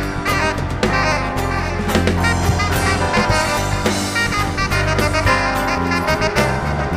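Live band playing an instrumental passage: a saxophone carries the melody over drums, bass and keyboards, with no singing.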